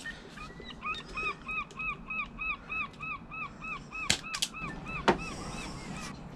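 A bird calling in a rapid, regular series of short rising-and-falling notes, about four a second, with two sharp clicks partway through.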